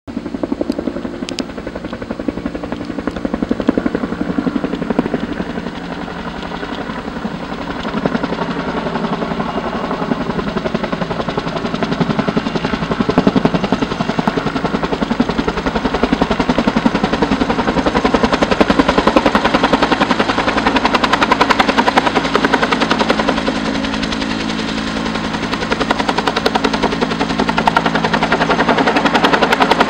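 Firefighting helicopter flying in with a water bucket slung on a long line and hovering low over a pond, its rotor blades chopping rapidly. The sound grows louder through the first dozen seconds and then holds steady while it hovers.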